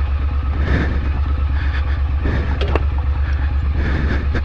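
Triumph Street Scrambler's parallel-twin engine running at low revs while the motorcycle rides slowly over a rocky dirt track. A few sharp knocks come about two and a half seconds in.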